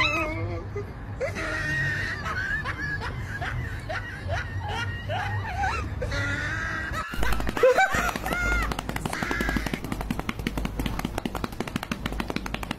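A cat gives a string of short chirping meows. After a cut, a cat purrs: a fast, even rattle with a deep hum.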